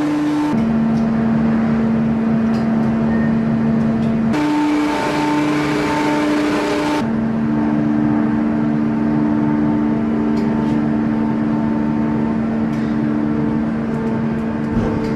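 Steady electric hum and whir of metalworking machinery, a gear-cutting machine at work. The pitch of the hum jumps abruptly to a new steady note about half a second in, again about four seconds in and again about seven seconds in.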